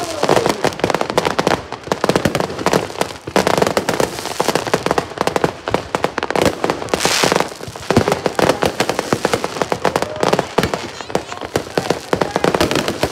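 Fireworks display: a dense, continuous barrage of bangs and crackles, with a brief hiss about seven seconds in.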